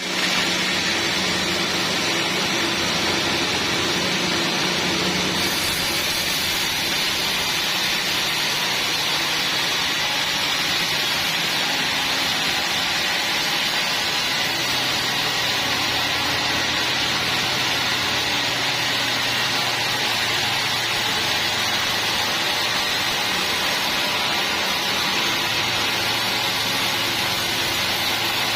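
Sawmill machinery running steadily: a continuous hissing noise over a low motor hum that shifts in pitch partway through.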